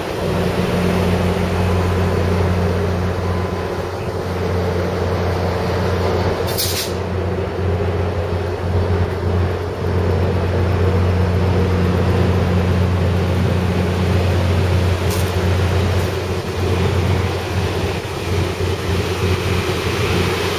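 Amtrak California diesel passenger train standing and idling beside the platform, with a loud steady low hum. A short hiss of air comes about a third of the way in, and a fainter one a little past the middle.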